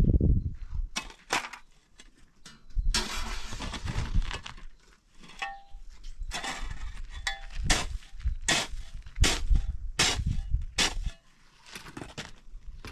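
Hand tools knocking and clanking in a run of a dozen or so separate sharp strikes, with a longer rough scraping stretch about three seconds in.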